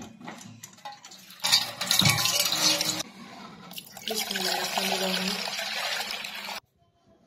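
Water splashing into a stainless steel pot, in two loud stretches. The second is poured from a plastic jug and carries a ringing note from the filling pot. The splashing cuts off suddenly near the end.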